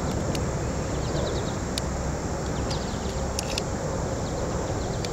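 Steady low rumble of wind on the microphone, with a few sharp clicks and faint high chirps scattered through it.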